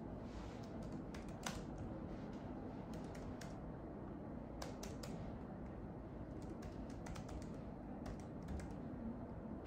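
Typing on a laptop keyboard: quiet, irregular key clicks.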